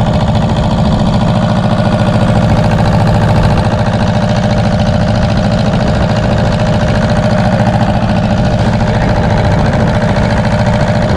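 Fishing boat's diesel engine running steadily, an unbroken drone with no change in pace.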